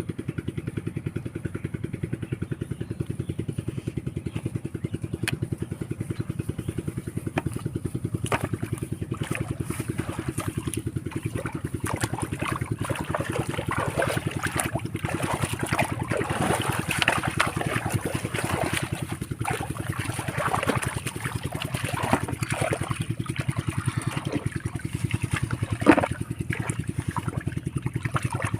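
A small engine running steadily with a fast, even beat. From about eight seconds in, irregular splashing and sloshing of water.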